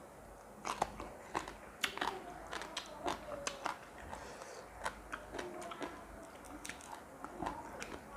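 Close-up chewing and crunching of food, with many irregular sharp crunches and smacks.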